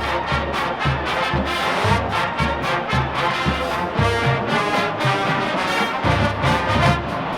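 Marching band playing: a full brass section over drums keeping a steady beat, with heavy low bass hits.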